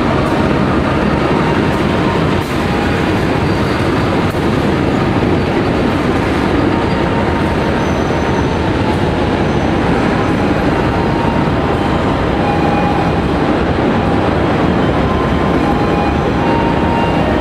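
A CC 201 diesel-electric locomotive passes, then its passenger coaches roll steadily by as the train curves into the station track. Faint wheel squeal comes and goes over the steady rumble.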